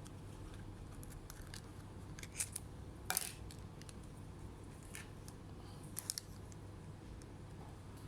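A few scattered light clicks and taps of small hard objects being handled, the sharpest about three seconds in.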